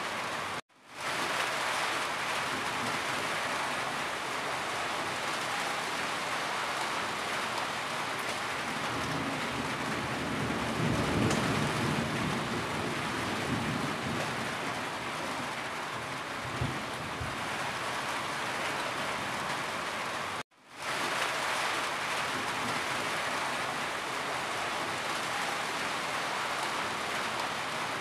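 Steady rain on a corrugated tin roof, with water running and dripping off the roof edge, an even hiss. A low rumble swells about ten seconds in and fades a few seconds later. The sound cuts out for a moment twice, just after the start and about twenty seconds in, then fades back in.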